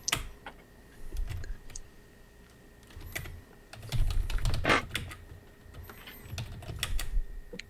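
Typing on a computer keyboard: irregular keystrokes, some in quick clusters, as a chat message is typed.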